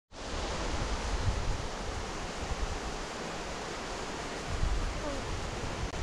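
Fast-flowing river water rushing steadily, an even noise with a low, uneven rumble beneath it.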